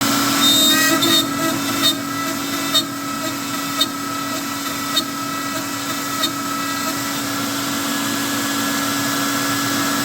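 CNC router spindle running steadily with a V-bit cutting into wood, a constant whine with sharp clicks about once a second over the first six seconds.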